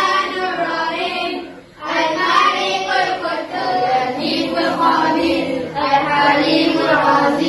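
Children singing together in chorus, a melodic Islamic devotional chant, with a brief dip in the singing a little under two seconds in.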